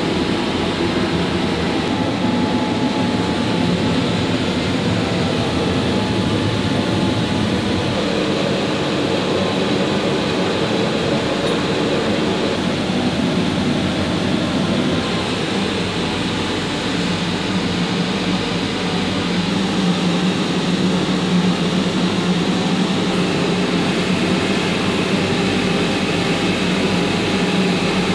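Woodworking machinery running steadily: a dense, continuous mechanical noise with a low hum that grows stronger about two-thirds of the way through.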